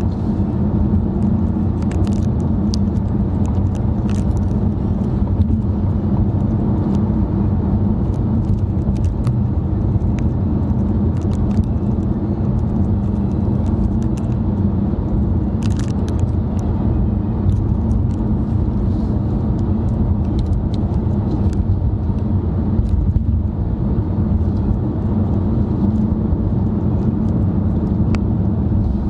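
Steady road and engine noise heard inside a moving car's cabin: a low, even rumble with small clicks and rattles now and then.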